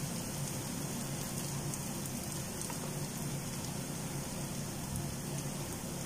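Onion-tomato masala frying in a wok with a steady, even sizzle as ground coriander is sprinkled on top.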